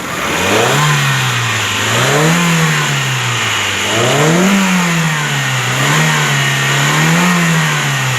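Freshly rebuilt 2.0-litre engine of a 2011 Hyundai Tucson, revved up and back to idle about five times in a row. It runs without valve tapping.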